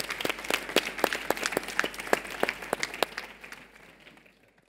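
Audience applauding, with many separate claps standing out, thinning out and fading away over the last second.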